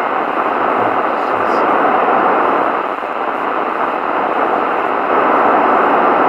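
CB radio receiver hissing with loud, steady static on an open FM channel, the weak distant station too faint to pull out of the noise.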